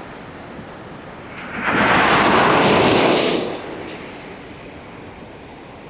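Ocean surf: a wave breaks and washes in about a second and a half in, loud for about two seconds, then falls back to a low, steady wash.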